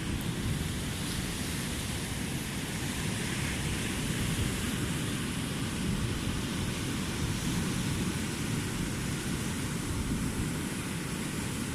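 Steady wash of surf along the shore, with wind rumbling on the microphone and no single event standing out.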